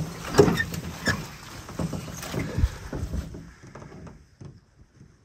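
Footsteps crunching through dry leaves and brush, with rustling and sharp knocks, as a person walks a trail carrying a canoe overhead. The sound drops away about three seconds in, leaving only a few faint clicks.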